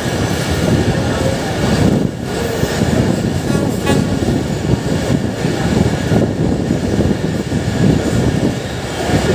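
Mehran Express passenger train running along the track, heard from an open coach doorway: a steady, loud rumble of wheels on the rails.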